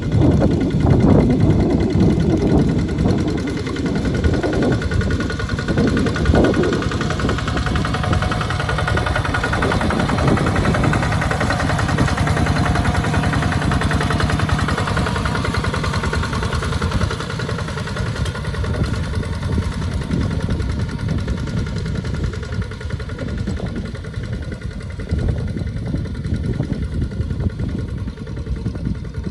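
Tractor engine running steadily while it plows a wet paddy field, a little louder in the first several seconds.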